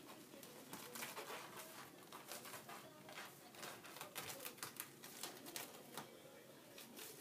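A cat sharpening its claws, a faint run of irregular, quick scratching strokes.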